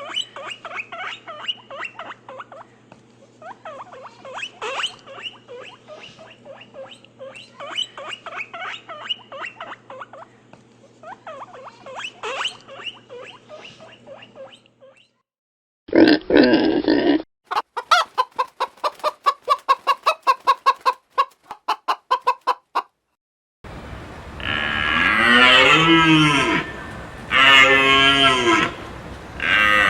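A sequence of farm-animal sounds: chickens clucking over a steady hum for about the first half, then a brief loud burst, then rapid pulsed calls for a few seconds. Near the end come long, loud, wavering moos of cattle.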